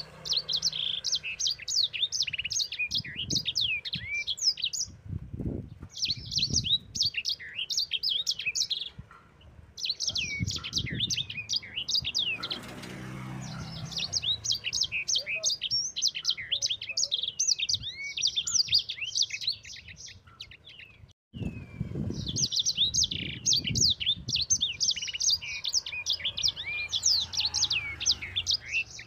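A sanger, a small canary-type finch kept as a cage songbird, singing gacor: long runs of rapid, rolling chirps and trills (ngerol), broken by brief pauses.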